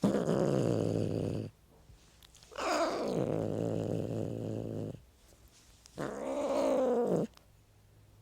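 A cat growling and yowling in three drawn-out calls with short pauses between them. The first is a low, steady growl. The second starts high and slides down into a growl, and the third rises and falls in pitch.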